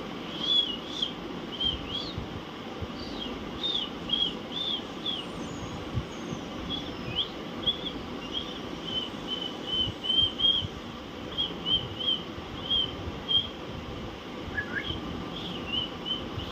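Alexandrine parakeets giving short, high chirps again and again, often in quick pairs or threes, over a steady low background hum.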